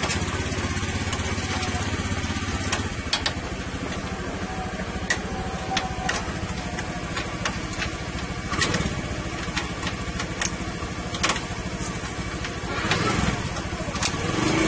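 An engine running steadily, louder for the first few seconds, then a lower hum. Scattered sharp clicks and knocks of hand work on the horn mounting and wiring sound over it.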